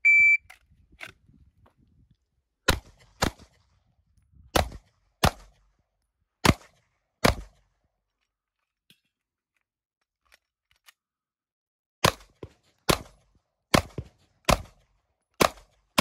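A shot timer's short beep, then a SAR9 9mm pistol firing two strings of about six shots each, roughly one shot every half-second to second, with a pause of several seconds between the strings.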